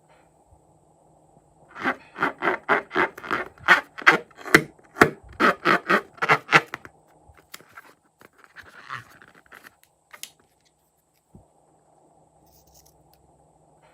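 A quick rhythmic run of scratching, scraping strokes, about three a second for some five seconds, then a few fainter scrapes and a single tap.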